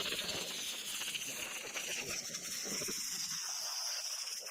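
Steady rushing hiss of compressed air, slowly sinking in pitch and cutting off abruptly near the end; a lower rumble under it drops away a little past halfway.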